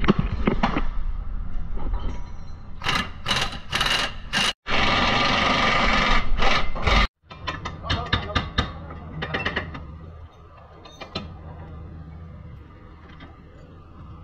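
Power tool running on the suspension bolts in several short bursts, then one steady run of about two seconds that cuts off suddenly. A spell of quick clicks follows, then a low steady hum.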